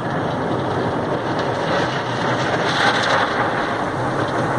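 Automatic car wash rinse water spraying onto the car's windshield and body, heard from inside the cabin as a steady rush of water that swells a little past the middle.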